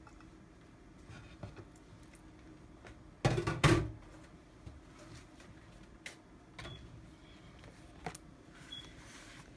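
A wooden cutting board set down on the counter with a short double knock about three seconds in, amid light handling of dried fish and a banana leaf, with a few small clicks.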